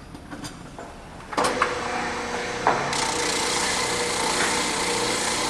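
Oscillating spindle sander switched on about a second and a half in and running with a steady hum; from about three seconds in a wooden workpiece is pressed against the spinning sanding drum, adding a strong sanding hiss as it sands the inside of a concave curve.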